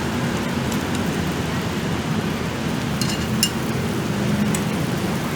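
Bánh xèo rice pancakes frying in hot skillets, a steady sizzle of batter and fillings, with a few sharp clicks about three to four and a half seconds in.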